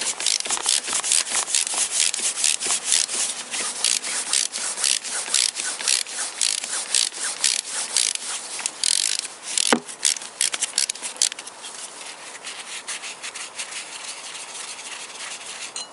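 Ratchet wrench clicking rapidly as it is swung back and forth, backing out a flywheel bolt on a Toyota VVT-i engine, with one sharper knock about ten seconds in. The clicking dies down after about eleven seconds.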